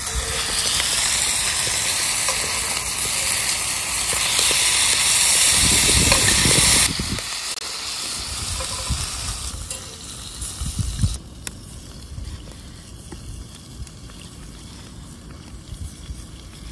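Beef and king oyster mushrooms sizzling in a hot pan, the loud sizzle dropping off suddenly about seven seconds in and fading to a quieter hiss with a few low knocks.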